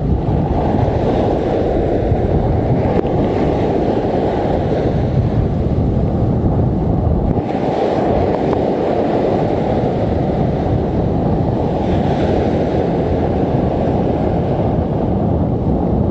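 Strong wind buffeting the microphone in a steady loud noise, over waves breaking and washing up the beach.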